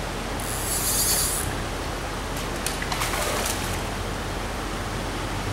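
Steady rush of a shallow stream running over rocks, with a brief splashy hiss about half a second in and a few small splashes around three seconds in, as a caught brown trout is handled in the water.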